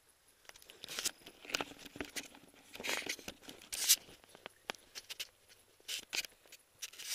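Irregular rustles and small clicks of clothing and gear being handled, with the sharpest rustle about four seconds in.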